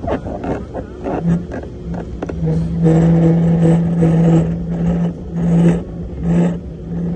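Skyline luge cart rolling down its concrete track: a steady wheel rumble with knocks and rattles, and a pitched hum that comes in and out and is loudest in the middle seconds.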